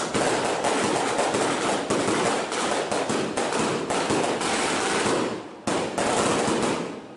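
Daytime festival fireworks barrage: a dense, rapid stream of bangs and crackling from aerial shells and firecrackers. It drops off briefly about five and a half seconds in, resumes for about a second, then dies away near the end.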